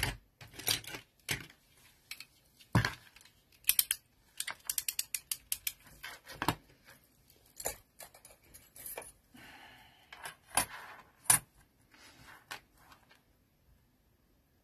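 Clicks, knocks and clatter of craft tools, a metal ruler and a craft knife, being picked up and set down on a cutting mat, with a quick run of close ticks about four and a half seconds in.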